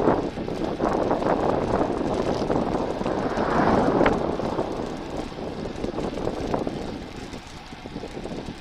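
Rushing wind and tyre noise from a bicycle riding on an asphalt road at about 29 km/h, swelling around the middle and easing off toward the end.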